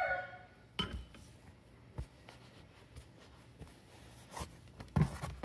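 Metal engine parts handled on a workbench while a piston is fitted to its connecting rod: a short metallic ring at the start, then a few scattered clinks and knocks, with a small cluster near the end.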